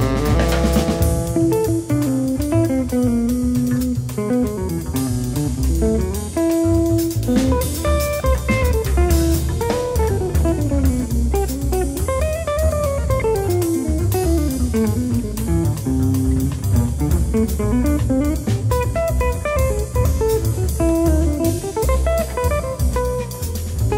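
Small jazz group playing: a guitar solo of quick single-note runs climbing and falling, over a walking bass and a drum kit.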